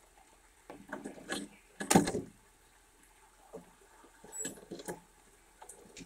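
Red squirrel scrabbling and knocking about on a wooden feeder tray and railing, claws on wood and seed husks rustling, in a few short bursts, the loudest about two seconds in.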